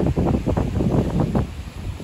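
Wind buffeting the microphone in uneven gusts, a low rumbling flutter, with sea surf washing against the rocks beneath it.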